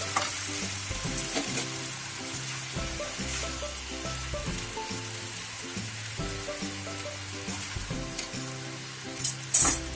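Noodles and vegetables sizzling in a hot nonstick wok as they are stir-fried, with the spatula and spoon scraping and tossing them. About nine and a half seconds in there are a few sharp knocks of the utensils on the wok. Background music with sustained notes plays underneath.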